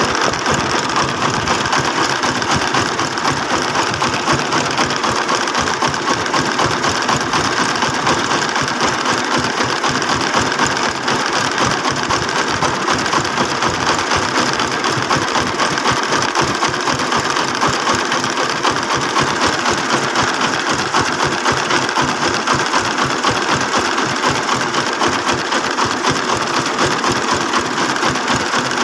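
Engine of a homemade Cambodian farm truck running steadily, with a fast, even chugging that holds the same pace throughout.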